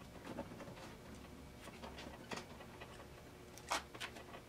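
Red backing liner being peeled off double-sided tape while a rubber window seal is pressed onto the top edge of a car door: faint scattered rustles and soft ticks, with a few short scratchy strokes in the second half.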